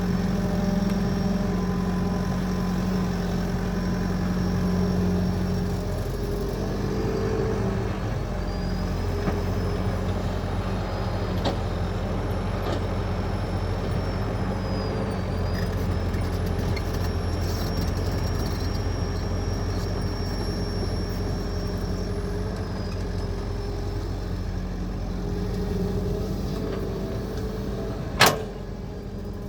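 Excavator diesel engine running steadily, with a thin high whine that dips in pitch now and then. One sharp clank near the end.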